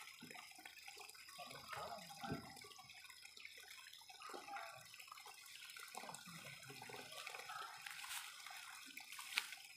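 Faint rustling and light knocks of a hewn timber beam being shifted by hand over cut brush, with a sharp click near the end.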